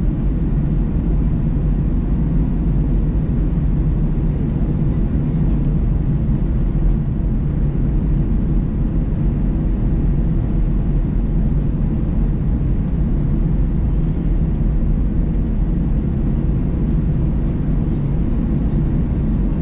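Steady low rumble inside the cabin of an Airbus A319 as it taxis, its wing-mounted jet engines running.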